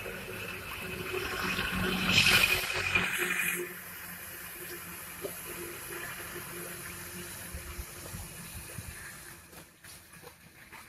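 A vehicle passing close on a wet road: a rushing tyre hiss through water builds to a peak about two seconds in and drops off sharply a little later, leaving a steady, quieter hiss.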